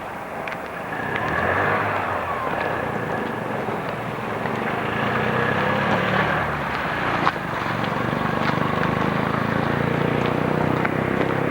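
Motor traffic at a city intersection: vehicle engines running and passing as a steady drone, swelling about a second in.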